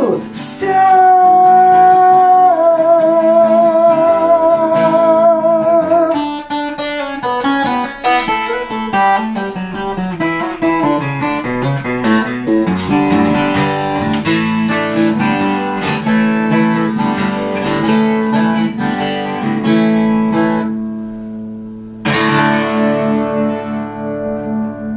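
Twelve-string acoustic guitar playing the song's closing bars under a man's long held sung note with vibrato, which lasts about six seconds. Busy strumming and picking follows, and a final strummed chord near the end is left ringing to close the song.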